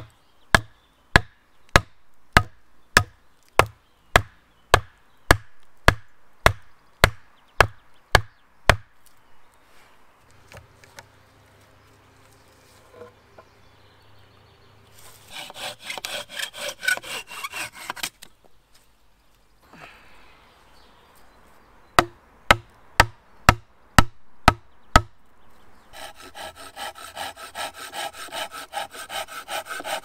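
A wooden club pounding a wooden stake into the ground: a steady run of about fifteen sharp knocks, a little under two a second, then a second shorter run of knocks later on. Near the end a folding hand saw cuts wood in quick back-and-forth strokes.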